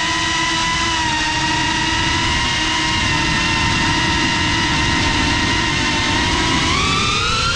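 FPV quadcopter's electric motors and propellers whining steadily, rising in pitch near the end as the throttle is pushed up.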